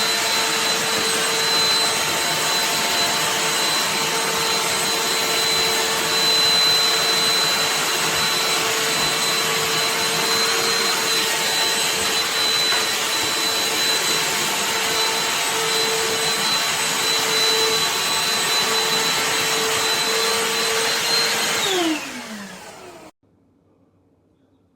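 BLACK+DECKER Dustbuster cordless handheld vacuum running steadily: a loud rush of air with a steady high whine. Near the end it is switched off, and the whine falls in pitch as the motor spins down.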